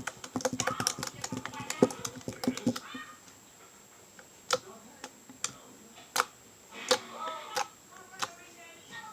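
Homemade glue slime being squeezed and stretched by hand: a quick run of sticky clicks and pops for about the first three seconds, then scattered single pops.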